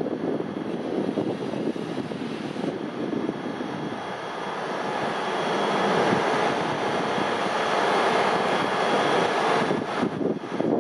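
CFL Série 2000 electric multiple unit passing, a steady rushing rumble that swells to its loudest about six to nine seconds in and eases near the end.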